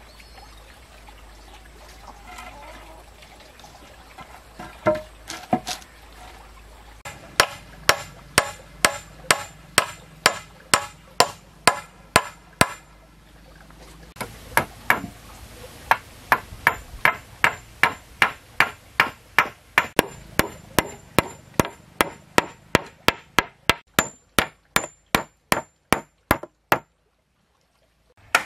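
A hand tool striking hard again and again in a steady rhythm, about two to three blows a second, in two long runs with a short break about halfway through. A few scattered blows come before them. The later run speeds up slightly toward the end.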